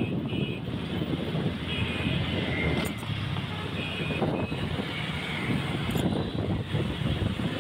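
Busy road traffic heard from among moving vehicles: a steady low rumble of engines and tyres, broken by several short horn toots.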